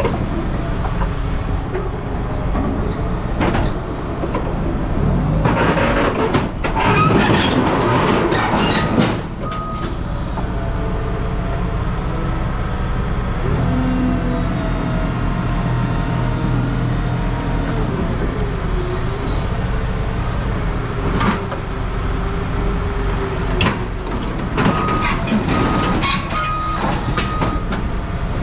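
Heavy scrap-processing machinery running steadily, with a loud stretch of metal clattering and scraping about six to nine seconds in, and a few short high squeals near the end.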